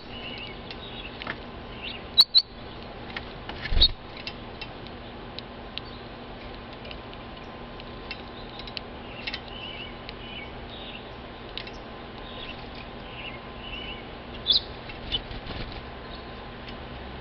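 House finches at a tube seed feeder: scattered sharp taps and clicks of beaks and feet on the feeder, with a few short bird chirps. A louder knock with a low thump comes about four seconds in, and another sharp knock near the end.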